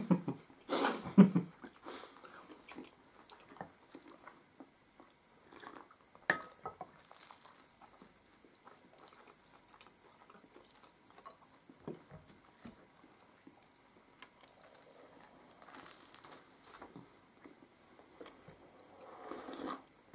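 Quiet eating sounds: chewing and bites of flaky puff pastry, with scattered light clicks of cups and plates. A short laugh right at the start, and a sip of tea near the end.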